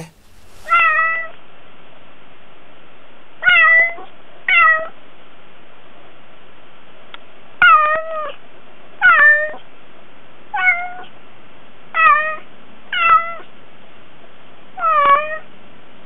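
A domestic cat meowing repeatedly: nine short meows a second or two apart, each falling in pitch at the end, over a steady recording hiss.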